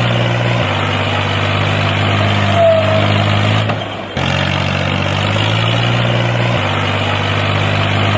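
Fiat 480 tractor's three-cylinder diesel engine running steadily under load while towing a thresher, with a brief dip about four seconds in.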